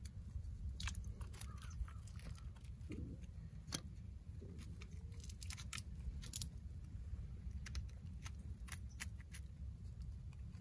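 Scattered light clicks and crunches at irregular intervals from a steel muskrat trap being handled and bedded among sticks and bark on a log, over a low steady rumble.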